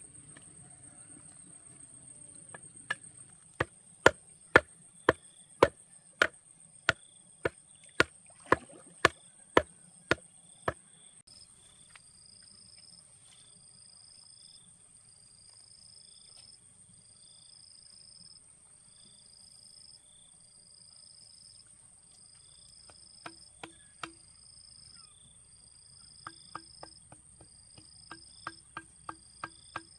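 A series of about fifteen sharp knocks, roughly two a second, then a few lighter knocks near the end, over a steady high-pitched buzz of insects. From about a third of the way in, a repeating insect chirp joins, about two a second.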